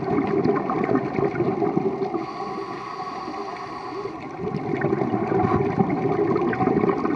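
Scuba diver breathing through a regulator underwater: a dense bubbling rush of exhaled air, a quieter pause with a faint high hiss about two seconds in as the next breath is drawn, then bubbling again.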